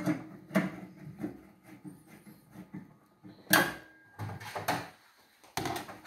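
Screwdriver work on a microwave oven's sheet-metal chassis while the magnetron is being screwed in place: a run of small clicks and scrapes, with sharper metallic knocks about three and a half seconds in and again near the end.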